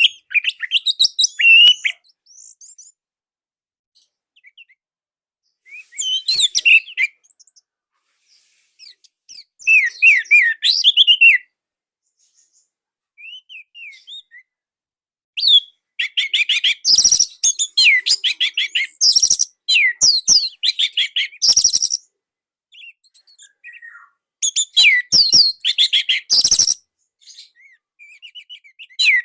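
Orange-headed thrush (anis merah) singing: bursts of quick, varied, high chirping and whistled notes, separated by pauses of a few seconds, with a long dense run of song about halfway through and another shorter one near the end.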